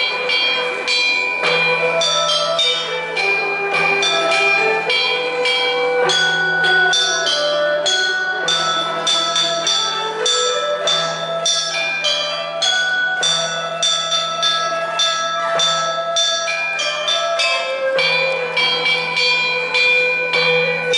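A set of tuned chime bells struck one note after another in a steady melody, each note ringing on into the next, over a low steady hum.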